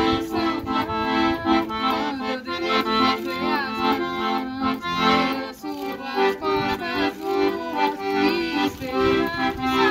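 Accordion music: a traditional tune with held chords under a moving melody.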